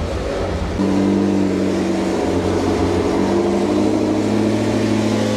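McLaren 650S's twin-turbo V8 idling steadily, settling into an even idle about a second in. The engine is running with a funnel on the coolant tank to bleed air from the freshly refilled cooling system.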